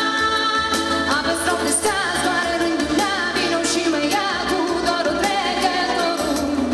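A woman singing a pop ballad into a microphone over instrumental accompaniment, holding notes with vibrato.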